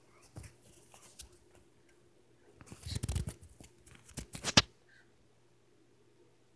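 A couple of faint taps, then a rustling scuffle about three seconds in and a quick run of sharp knocks about a second later, the last of them the loudest.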